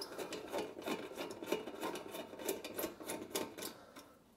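A Phillips screwdriver turning a screw out of the gas oven's broil igniter bracket: small irregular metal scrapes and clicks, several a second.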